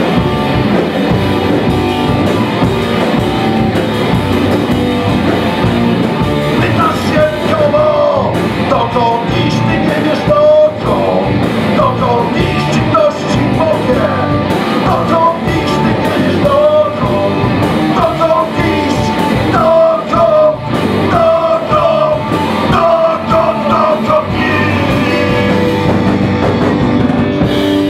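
Live rock band playing, with electric guitars and drums, and a man singing over them from about seven seconds in.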